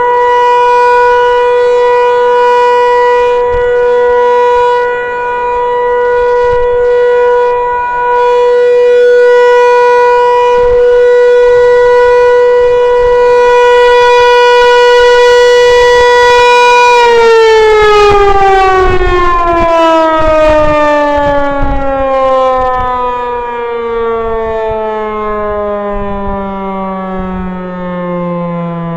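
Federal Signal 508 outdoor warning siren sounding the steady full-alert tone. About two-thirds of the way through, the tone starts to fall steadily in pitch as the siren winds down at the end of the alert signal.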